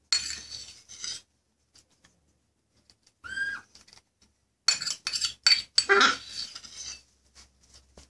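Macaw chick being spoon-fed: a short begging call about three seconds in, then a burst of sharp clicks and scraping from the steel spoon against the chick's beak and the steel bowl as it gulps the food.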